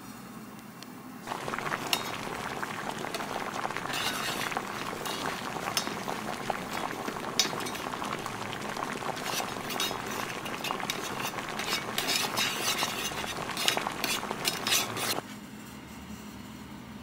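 Sauce bubbling in a small pot, a steady hiss full of little pops, with occasional clinks from the ladle against the pot. It starts about a second in and cuts off suddenly near the end.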